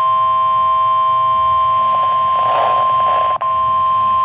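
Emergency alert attention tone: a loud, steady electronic tone, broken briefly a little over three seconds in. It is the signal that announces a spoken emergency alert, here a tornado warning.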